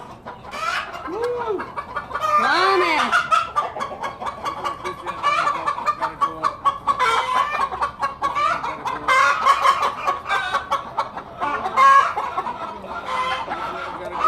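Backyard chickens clucking continuously, with two drawn-out rise-and-fall calls about one and three seconds in.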